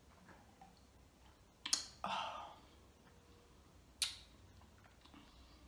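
Sharp mouth clicks and lip smacks after sipping juice through a straw, the first followed by a short breathy exhale, the second about two seconds later.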